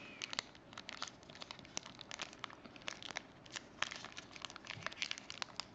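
Crinkling and crackling of a trading-card pack wrapper being handled and opened: a scatter of small, irregular crackles.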